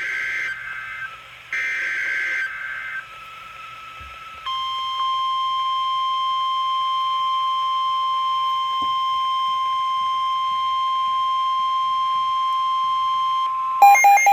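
NOAA Weather Radio emergency alert: the last buzzy bursts of the digital SAME header, then the steady 1050 Hz warning alarm tone, held for about nine seconds. The tone signals that a warning follows, here a severe thunderstorm warning. Near the end, rapid beeping starts.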